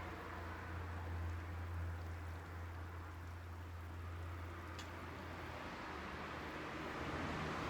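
Cooking over a twig-stove fire: a steady hiss with a low hum that fades near the end, and a faint tick or two.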